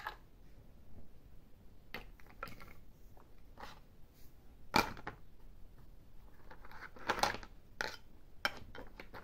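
Plastic parts of a take-apart toy truck clicking and knocking together as they are handled, with several scattered sharp knocks, the loudest about five seconds in.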